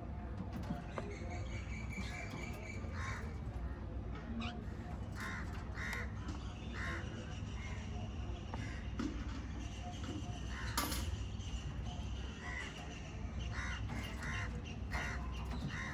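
Pet cockatiel and budgerigars calling: short harsh chirps repeated at irregular intervals, with scattered small clicks, over a steady low hum.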